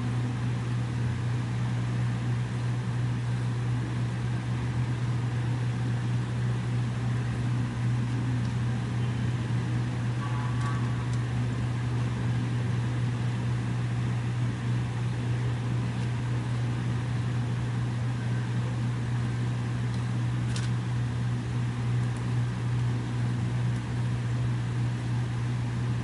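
Steady low machine hum at an even level, with two faint clicks, about ten and twenty seconds in.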